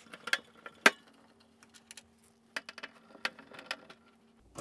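Hand-held Phillips screwdriver undoing screws in a tumble dryer's metal back panel: scattered small metallic clicks and ticks, the sharpest about a second in and a cluster a little later.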